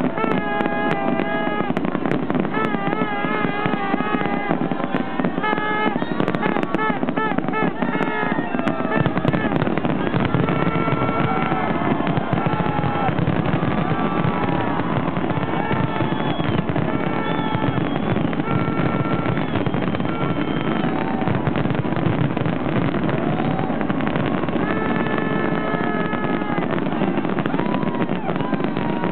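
Fireworks banging over a dense, steady crowd noise. Wavering tones ride over the crowd in the first part, and long held tones come later.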